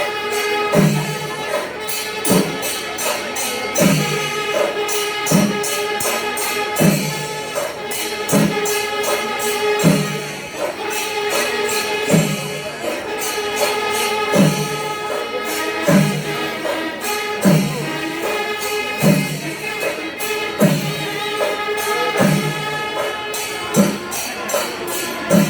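Temple percussion ensemble playing. A low drum beat falls about every second and a half under continuous clashing cymbals, with a sustained pitched wind instrument held over the rhythm.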